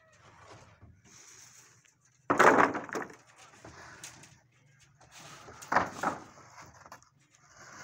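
Steel rebar clattering as bars are dragged off a pickup truck's bed and dropped, with two loud crashes, one about two seconds in and one near six seconds.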